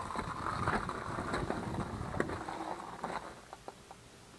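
Dirt bike slowing to a stop: a low rumble fades out about three seconds in, leaving light clicks and taps.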